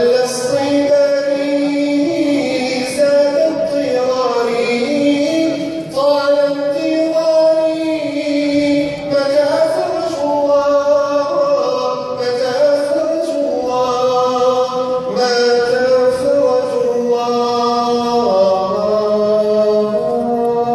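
Arabic nasheed sung by a male munshid, a winding melody with long held notes over a steady lower drone.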